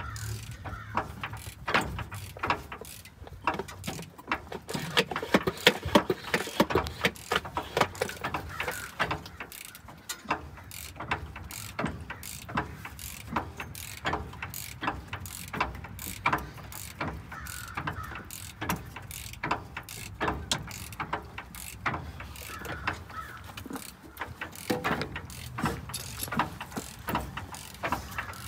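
Hand tool work on metal: a socket ratchet wrench clicking in quick, irregular runs, with scattered sharp metal clicks and knocks, over a low steady hum.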